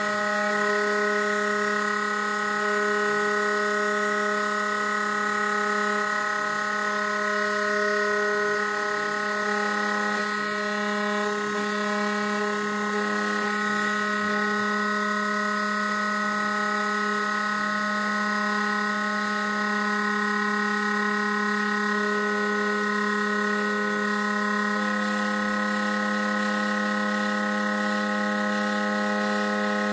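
Snapmaker CNC spindle running steadily as its V-bit mills traces into a copper-clad circuit board. The sound is an even hum of several held tones, and the mix of tones shifts slightly about 25 seconds in.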